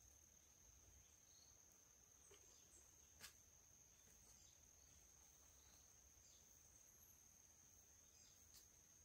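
Faint, steady high-pitched drone of insects, with two short clicks, about three seconds in and near the end.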